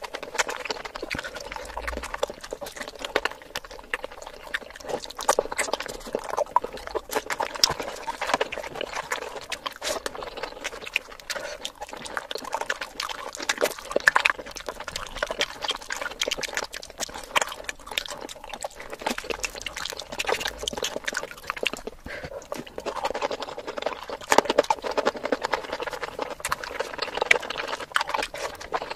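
Close-miked wet eating sounds: chewing and lip smacking on rice and mutton curry, with the squish of fingers mixing rice into the gravy, a dense run of small wet clicks and smacks.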